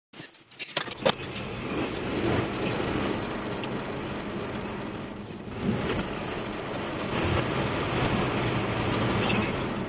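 Car interior noise while driving: a steady rush of road and engine noise with a low hum, and a few sharp clicks in the first second.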